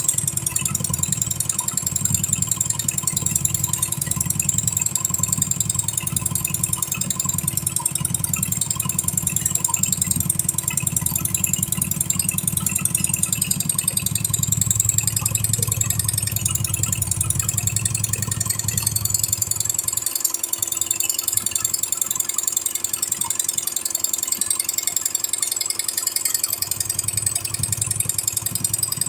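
Single-head, 8-needle computerized embroidery machine stitching, a fast, steady mechanical clatter of needle strokes. The deeper running hum drops away for several seconds about two-thirds of the way through, then comes back.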